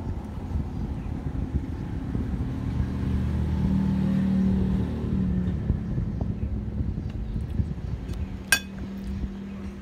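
Low engine rumble from a running motor vehicle, swelling about three to five seconds in, with one sharp click near the end.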